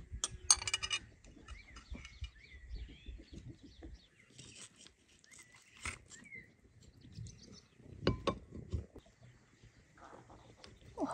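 Cutlery clinking and tapping on ceramic plates as food is served: one bright ringing clink about half a second in, then lighter taps. Small birds chirp in the background.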